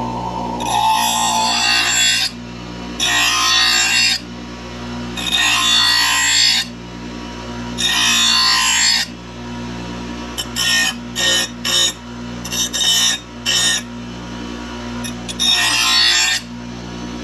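Bench grinder running steadily as a steel mower blade is pressed to the grinding wheel to sharpen it: four grinding passes of a second or more each, then a string of short quick touches, then one more longer pass near the end.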